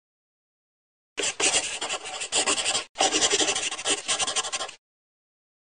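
A scratchy, rasping rubbing noise in two stretches of a little under two seconds each, with a brief break between them. It starts and stops abruptly.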